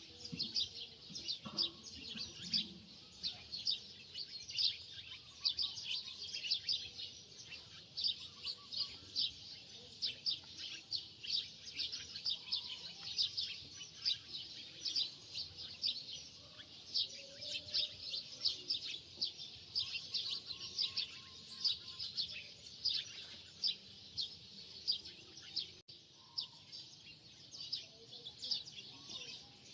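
Many small birds chirping rapidly and without a break, in a dense chatter.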